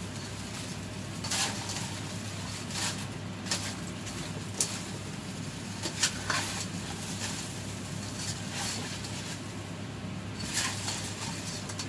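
Mantis shrimp frying in a pan, turned with a utensil: short scrapes and clicks against the pan every second or two over a light sizzle and a steady low hum.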